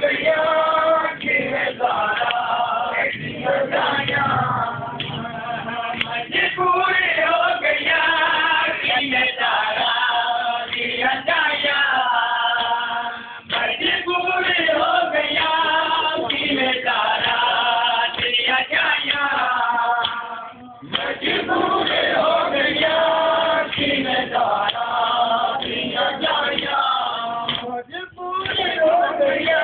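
A group of men chanting a noha, the Shia Muharram lament, together in a steady rhythm, with the slaps of chest-beating (matam) keeping the beat. The chant breaks off briefly about two-thirds of the way through, then resumes.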